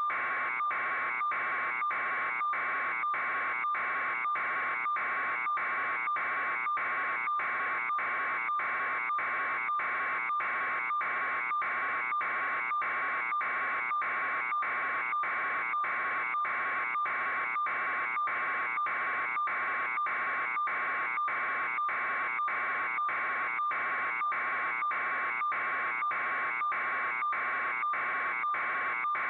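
Steady electronic buzz, like a signal or alarm tone, cut by short regular dropouts about three times every two seconds.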